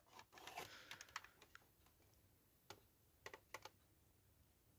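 Near silence with a few faint, scattered clicks and light taps, mostly in the first second and a half and then three isolated ticks later on, like small parts being handled.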